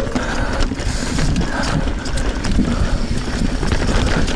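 Trek Fuel EX 7 mountain bike rolling along a dirt trail: tyre noise, rattling over bumps and ratchet-like clicking from the drivetrain, with rumble of wind and jolts on the helmet camera's microphone.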